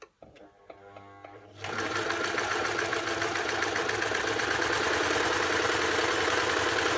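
Queen Deluxe 222 electric sewing machine starting up: a faint motor hum, then about a second and a half in it runs at a steady speed with the needle clattering rapidly as it stitches.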